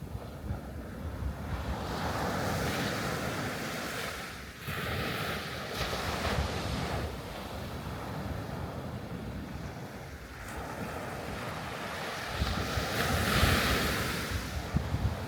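Sea waves breaking and washing on the shore, the surf swelling louder three times, with wind buffeting the microphone.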